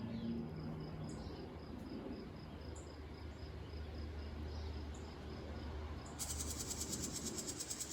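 Insects trilling in summer woods: a faint high chirping repeats evenly, then a loud, rapidly pulsing high buzz starts suddenly about six seconds in.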